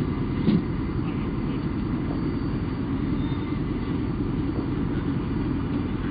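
Armored vehicle's engine running at idle, a steady low rumble, with a single knock about half a second in.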